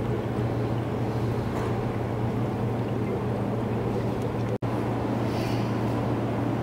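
Steady low machine hum, unchanging throughout, broken for an instant about four and a half seconds in.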